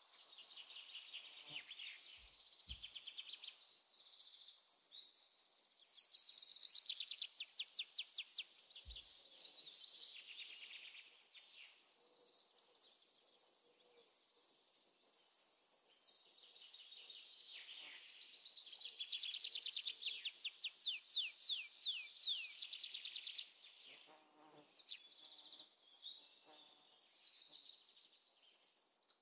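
Birds chirping over a steady high insect buzz, with two loud runs of quick repeated chirps, one about a quarter of the way in and one later; the buzz cuts off suddenly near the end.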